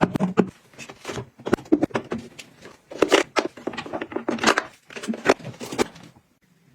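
Items being handled and set down by hand: an uneven run of clicks, taps and rustles, stopping about six seconds in.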